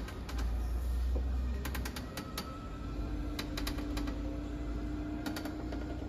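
Clicks and creaks of a travel trailer's entry door being handled on the way inside, with a steady hum coming in about two seconds in.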